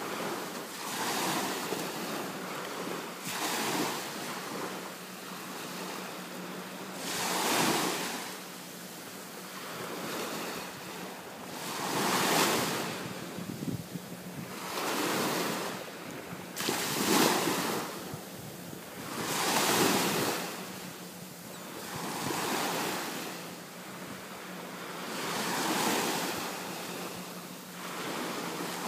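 Small ocean surf breaking and washing up the beach, the noise swelling and fading every few seconds.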